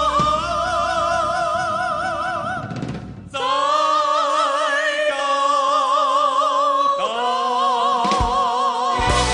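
Music of long held notes with a wide, even vibrato, breaking off briefly about three seconds in before new notes start.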